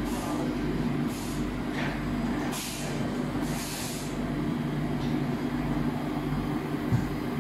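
Steady hum of a conveyor tunnel dryer and print-shop machinery, with several short hisses of air and a soft thump near the end.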